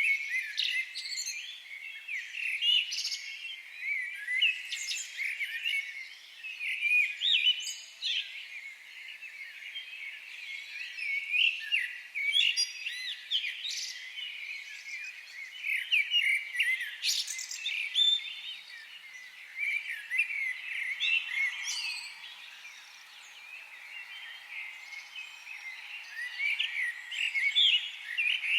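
Many small birds chirping at once: a dense, continuous chatter of short, high, overlapping chirps and trills that swells and dips.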